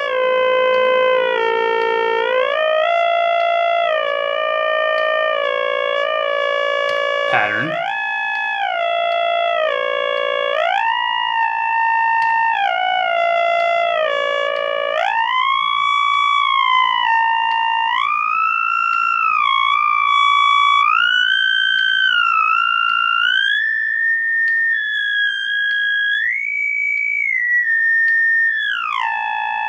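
Make Noise Spectraphon spectral oscillator fed a sawtooth wave: a steady buzzy synth tone whose emphasised harmonic keeps gliding up and then back down to new steps every second or two, zigzagging through the harmonic series as individual spectra are written into an array. One quick upward sweep comes about seven seconds in.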